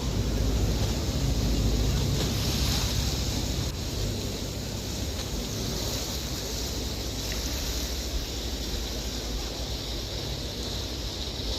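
A boat under way on open water: a steady rush of water with a low engine rumble, and wind buffeting the microphone.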